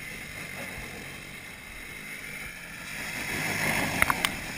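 Sport quad (ATV) engine running as the quad rides closer, getting louder from about three seconds in, with a few sharp clicks about four seconds in.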